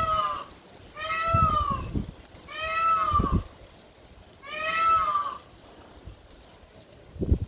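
Corella parrot giving four drawn-out, wavering calls, each rising then falling in pitch, spaced about a second and a half apart. A short knock near the end.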